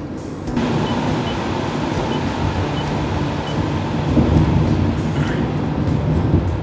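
Steady engine and road noise of a car being driven, a low rumble that gets louder about half a second in and then holds.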